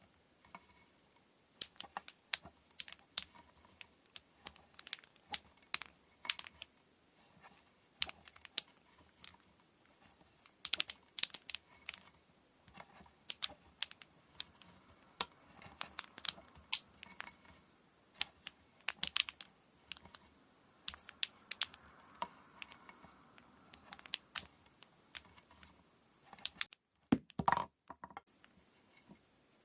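Handwork on kumihimo braiding materials at a table: irregular small clicks and taps of tools, bobbins and thread being handled, with a short louder scrape near the end.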